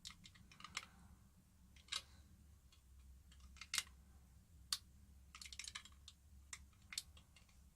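Irregular small clicks and taps as the parts of a dismantled PP3 battery are picked at and pulled apart, about a dozen sharp ticks with a quick cluster around two-thirds of the way through.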